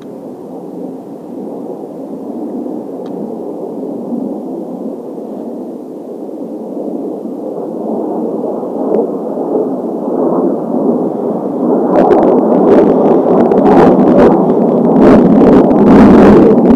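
Twin turbofan jet noise from Blue Impulse Kawasaki T-4 jets in formation, a steady roar that grows steadily louder as the formation approaches. In the last few seconds it turns rough and crackling.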